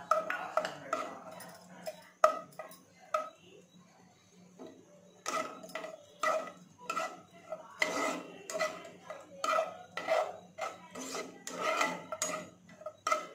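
A perforated steel skimmer ladle clacking and scraping against a pan as it stirs cashew pieces and raisins frying in the pan, in quick uneven strokes with a short pause a few seconds in.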